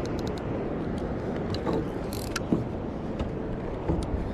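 Steady low background rumble with a quick run of sharp clicks at the start and scattered clicks and knocks after it: a fishing rod and reel being handled as a fish bites.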